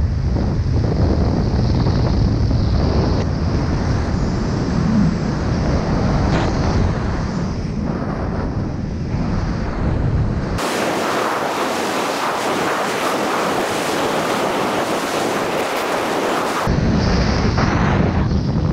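Wind rushing and buffeting over a body-mounted action camera's microphone in fast speed-riding flight, a loud rumbling hiss. About ten seconds in, the low rumble drops away for around six seconds, leaving a thinner, brighter hiss, and then the buffeting returns.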